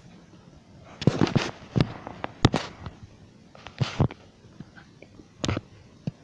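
Irregular clusters of sharp knocks and scuffs, about five bursts with quiet between them, from a phone camera being handled and bumped.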